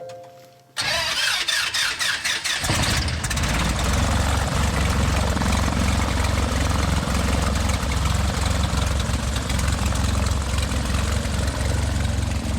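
Small plane's engine running steadily. It comes in suddenly about a second in and settles into an even drone within a couple of seconds.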